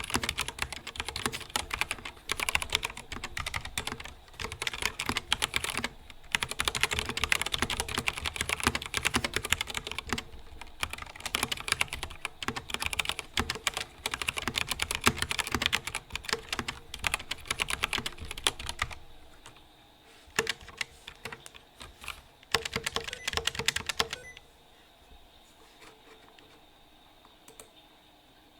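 YUNZII KC84 mechanical keyboard with its stock switches and stock stabilizers being typed on fast, a dense run of key clacks. About nineteen seconds in the typing thins to a few separate key strikes, and a few seconds later it goes almost quiet, with only the odd faint tick.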